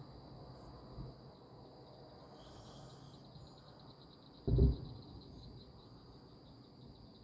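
Insects chirping steadily in a fast, even pulse. A single loud, dull thump comes about four and a half seconds in, and a fainter knock about a second in.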